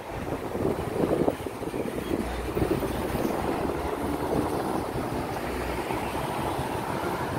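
Steady road traffic noise with wind buffeting the microphone.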